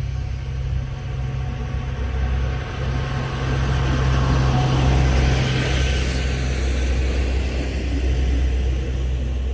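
Pesa 620M diesel railcar pulling out and passing close by, its engine and wheels on the rails growing loudest about five seconds in, then fading as it moves away.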